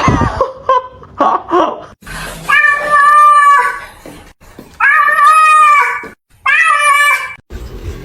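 Domestic cat yowling: three long, drawn-out meows of a second or more each, after a few short sounds in the first two seconds.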